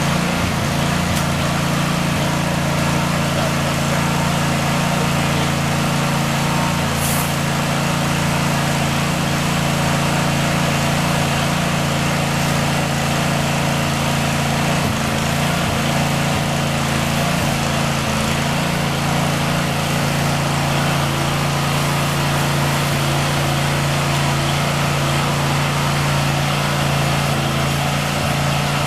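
Pressure washer's small gas engine running steadily under load, with the hiss of the high-pressure water spray.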